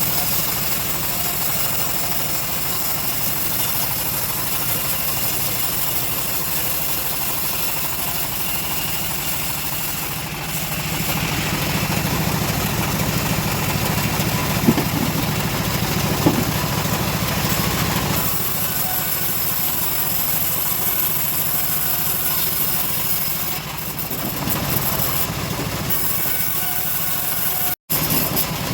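Homemade bandsaw sawmill running steadily, louder for about seven seconds in the middle, with two sharp knocks during that stretch. The sound cuts out for an instant near the end.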